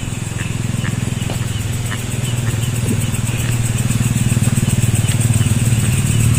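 A small engine running steadily with a fast, even low hum, getting slightly louder toward the end, with a thin high steady tone above it.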